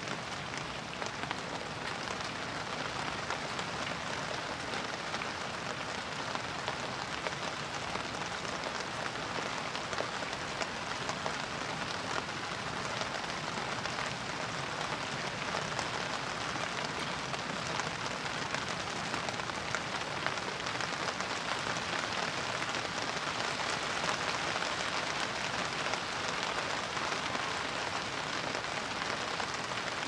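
Steady rain falling: an even hiss of rain with many small drop ticks mixed in, holding at the same level throughout.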